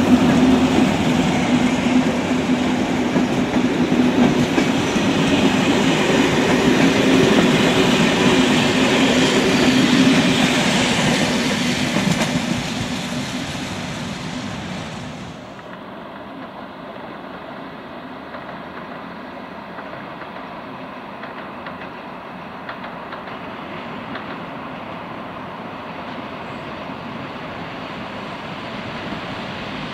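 Passenger coaches rolling on the rails behind a departing ČD class 242 electric locomotive, wheels clicking over rail joints, fading as the train pulls away. About halfway through the sound cuts suddenly to a quieter, steady, duller noise.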